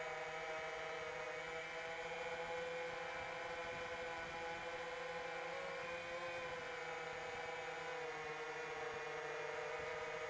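iFlight Chimera7 Pro FPV quadcopter in flight: its four motors and propellers make a steady whine, with a slight rise and fall in pitch around the middle as the throttle changes.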